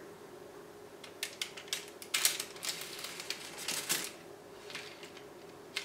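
Long knife slicing down through a lemon pound cake with a firmed-up glaze on top. A run of light clicks and short scratchy strokes comes from about one to four seconds in as the blade works through.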